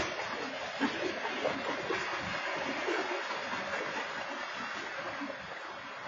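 Freight train cars rolling past at speed: a steady rush of steel wheels on rail, with a few scattered knocks from the cars.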